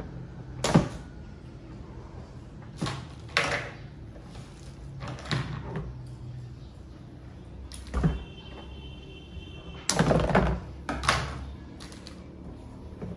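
Knocks and clunks of hard plastic parts of a kids' ride-on toy ATV being handled during assembly: separate sharp knocks, the loudest about a second in, with a longer run of clattering around ten seconds in.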